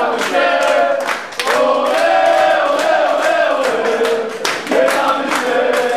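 A group of men singing a victory chant together in a changing room, clapping their hands in time as they sing.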